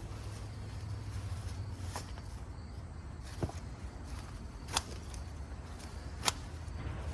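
Digging in garden soil: faint scraping and handling over a low steady rumble, with two sharp clicks in the second half.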